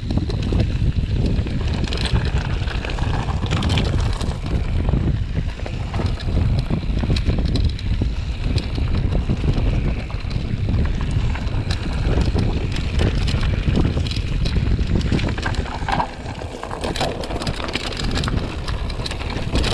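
Heavy wind buffeting the microphone, a steady low rumble with scattered clicks and rattles through it.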